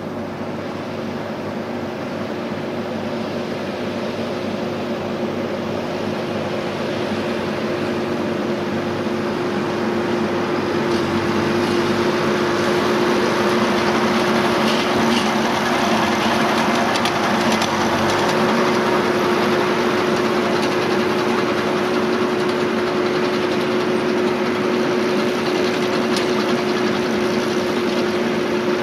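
Fendt 415 Vario tractor's four-cylinder diesel engine running steadily under load while it drives a Krone Comprima V150 XC round baler picking up a lucerne swath. There is a constant hum and scattered light clicks. The sound grows louder over the first ten seconds or so as the rig comes closer, then holds.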